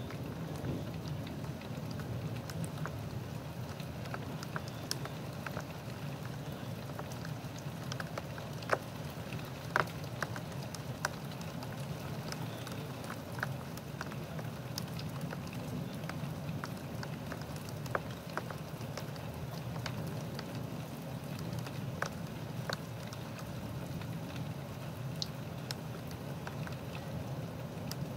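Steady rain from a severe thunderstorm, with scattered sharp ticks of drops striking a nearby surface; a few louder ticks about nine to ten seconds in.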